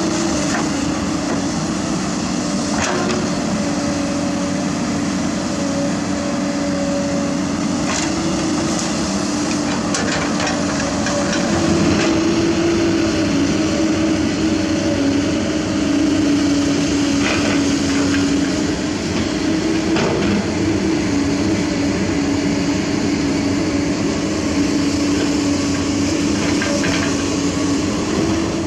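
Heavy diesel engines of an excavator and a dump truck running steadily, with occasional sharp knocks and clatters.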